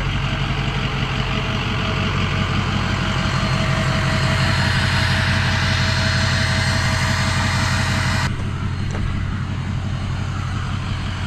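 Gas-engine pressure washer running steadily with the spray wand hissing. The spray cuts off about eight seconds in, and the engine keeps running on its own.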